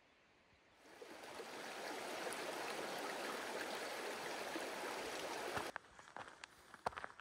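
A creek's water rushing steadily. It fades in about a second in and cuts off abruptly near the end, and is followed by footsteps on the trail.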